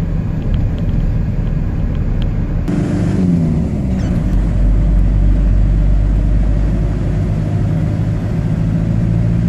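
Car engine and road noise heard from inside the cabin: a steady low rumble. About three seconds in, the engine note falls in pitch.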